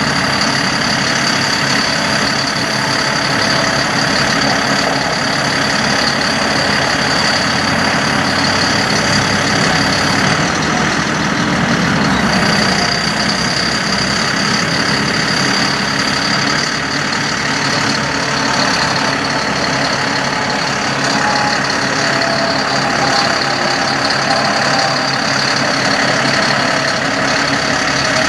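A 2007 GMC C7500 truck's engine runs steadily at idle with the PTO driving the hydraulics of the Terex Hi-Ranger XT-55 aerial lift as the boom moves. A steady high whine sits over the engine.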